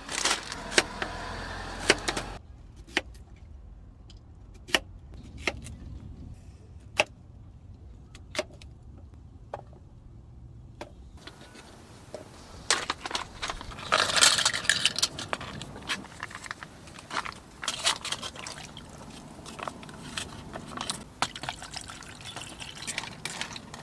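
Scattered sharp clicks and light clinks. From about halfway through they give way to busier metallic clattering and jingling, as of small hard objects being handled.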